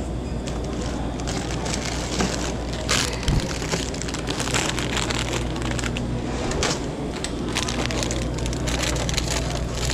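Plastic snack-chip bags crinkling and rustling as they are handled, with a steady low hum underneath.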